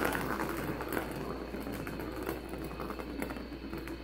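Light-up plastic ball rolling around the circular plastic track of a cat's cardboard scratcher toy: a continuous rolling rumble with small clicks that slowly fades as the ball slows.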